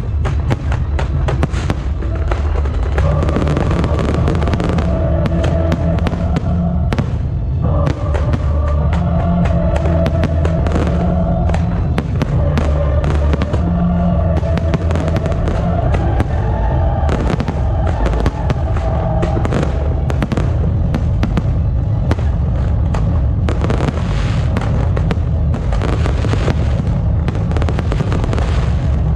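Fireworks and firecrackers going off in a dense, unbroken run of rapid cracks and bangs, with music playing underneath.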